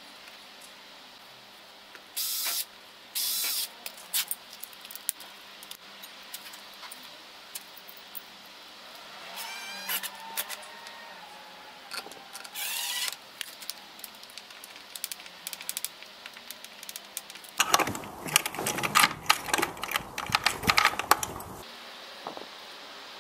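Two short hisses of a spray can at a gate lock, followed by metallic clicking, rattling and a few squeaks as the lock and bolt hardware is worked by hand. Near the end comes a dense run of close clicks and rattles.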